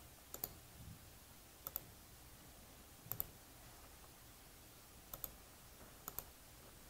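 Faint, separate clicks of a computer mouse, several of them doubled, spread irregularly over a few seconds against quiet room tone.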